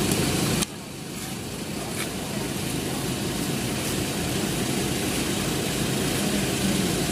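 Steady engine hum with a regular low pulsing, like a motor idling nearby. The level drops suddenly well under a second in, then slowly builds back.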